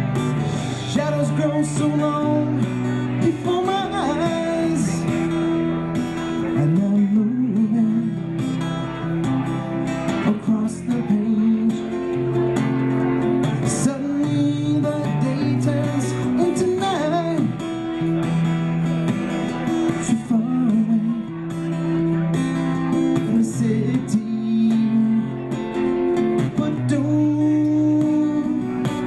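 A man singing with a strummed acoustic guitar, a solo live performance of a pop song.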